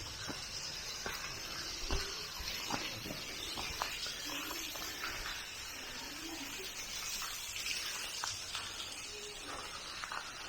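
Steady rushing noise of running water, with scattered light clicks.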